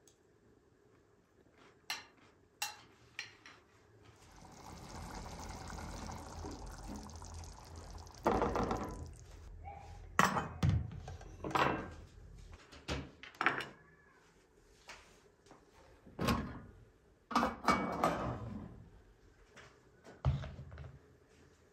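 A metal ladle knocking and scraping against a metal cooking pot as thick stew is ladled onto a plate, a run of sharp clinks and thunks. Before that comes a few seconds of steady pouring sound.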